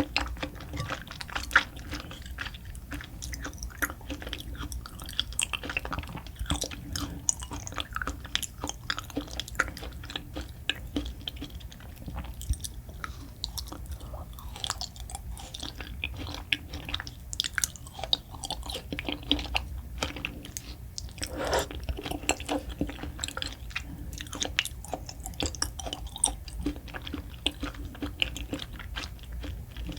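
Close-miked mouth sounds of a person chewing food, a stream of wet smacks and clicks at an irregular pace.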